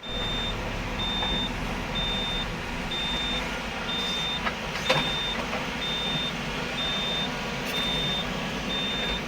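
Heavy mining vehicle's reversing alarm beeping steadily about once a second, a single high tone, over the continuous rumble of its diesel engine. A couple of sharp knocks come about halfway through.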